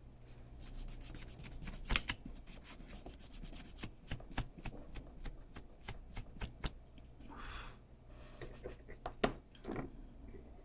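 Circuit board being scrubbed clean after soldering, a run of quick scraping strokes across the board, typical of cleaning off flux residue. A short hiss comes near the middle, followed by a few scattered knocks.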